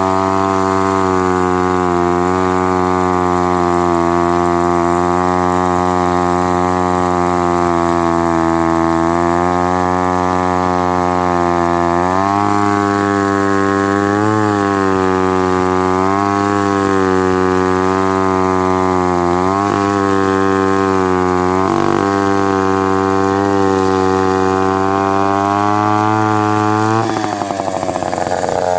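Mid-1950s Lombard 35 gear-drive chainsaw running steadily while cutting seasoned maple, its engine pitch sagging and recovering a few times under the load of the cut.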